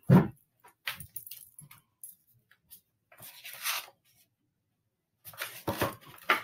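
Handling of a hardcover picture book: soft clicks and paper rustling as it is opened and its pages turned, with one short rustle about three seconds in.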